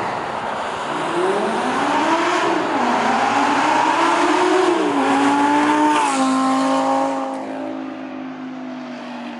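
Audi R8's 5.2 FSI V10 through a Fabspeed valvetronic exhaust, accelerating hard past on the road. The note climbs and drops with each upshift, then holds steady and fades after about seven seconds as the car moves away.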